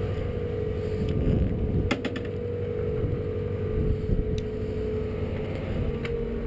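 Cable ferry's machinery running with a steady drone and a constant humming tone, with a few short sharp clicks about two seconds in and again after four seconds.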